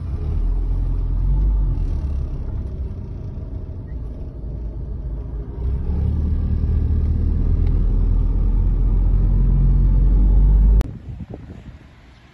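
Low steady rumble of a car driving, heard from inside the cabin; it grows louder about six seconds in and cuts off abruptly near the end, leaving much quieter outdoor sound.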